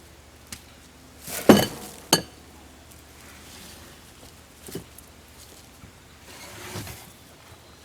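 Two sharp clanks about two thirds of a second apart, the second ringing like struck metal, then a couple of fainter knocks, as a log is handled on a bandsaw mill.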